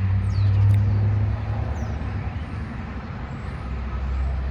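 A motor vehicle's engine running with a low rumble, loudest in the first second or so and then easing off.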